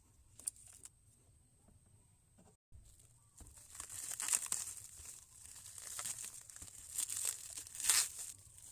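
Crinkling, rustling handling noise in a run of irregular bursts lasting about five seconds, starting after a short gap in the sound.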